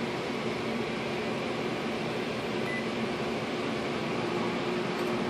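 Microwave oven running with a steady hum, cooking an ear of corn in its husk.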